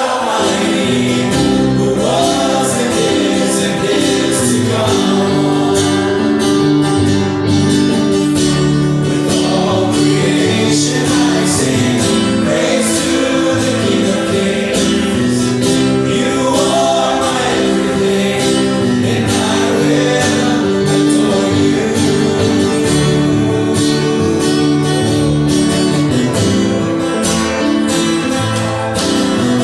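Gospel worship music: a song sung to guitar accompaniment, playing steadily throughout.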